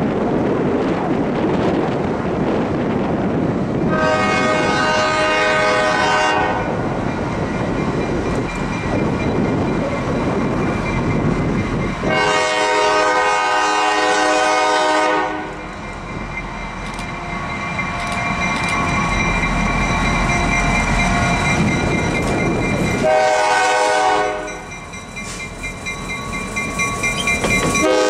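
Diesel locomotive horn of an Iowa Northern freight train sounding two long blasts and a short one, with a fourth blast starting at the very end: the long-long-short-long grade-crossing signal. Between the blasts the approaching locomotive's diesel engine and wheels rumble, growing louder near the end as the lead unit comes close.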